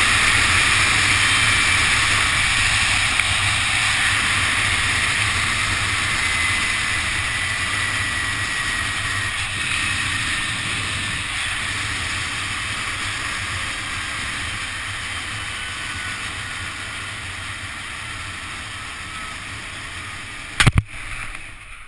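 Zip-line trolley running down the steel cable at high speed, with wind rushing past the camera and a faint pulley whine that slowly falls in pitch; the whole noise fades as the rider slows. Near the end comes a sharp double knock as the trolley reaches the bottom station.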